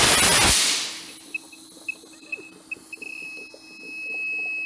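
A loud burst of rushing noise that dies away within a second, then a handheld gas detector's electronic alarm: short high-pitched beeps at uneven intervals that turn into one continuous high tone about three seconds in.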